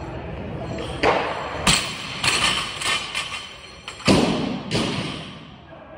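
Barbell loaded with rubber bumper plates dropped from overhead onto the gym floor, landing with a thud and bouncing in a few smaller knocks. About four seconds in comes a further loud thud and knock as the bar is handled on the floor.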